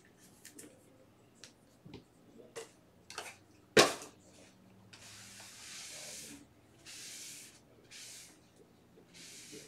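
Trading cards and their plastic sleeves and wrappers being handled on a desk: a few light taps and clicks, one sharp knock about four seconds in, then several short rustling slides.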